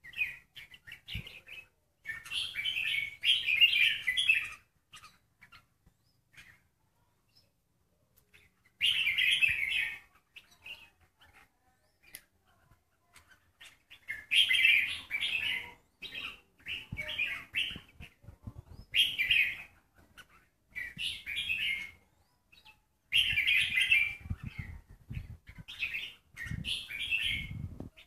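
Caged red-whiskered bulbul singing short, bright, chirpy phrases of a second or two, repeated every few seconds with quiet gaps between them. Low soft thumps, like wing flutters against the cage, come near the end.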